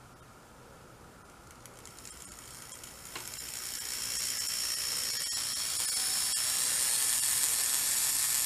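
Small Mabuchi three-pole slot-car motor driving a snap-together Delrin gearbox in an HO-scale model locomotive chassis, running on bench power. It is faint at first, then from about two seconds in a whirring, grinding noise grows louder and levels off. The sloppy, binding gearbox is what gives the mechanism its coffee-grinder sound.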